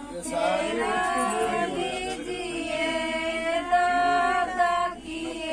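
Several voices singing together in long held notes, a chant-like song of the wedding rites around the sacred fire, with a short break near the end.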